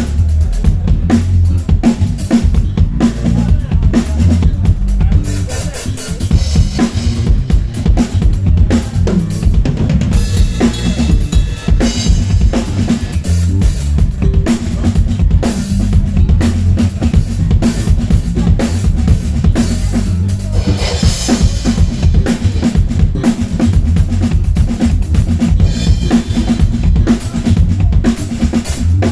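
Live drum kit played fast and busy in a jam, with kick drum, snare and rimshots, over a bass guitar.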